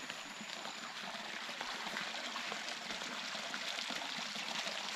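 Water flowing and trickling steadily, with many small splashes.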